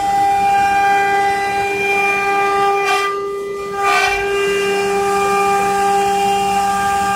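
CNC stone carving machine's spindle running with a steady whine over a low hum. The whine dips briefly about three seconds in.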